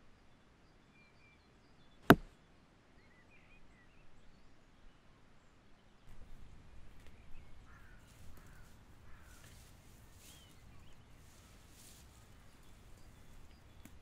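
A single sharp crack about two seconds in, the loudest sound by far. From about six seconds in comes the rustling of a canvas rucksack being handled and hung on a tree branch, with faint bird chirps.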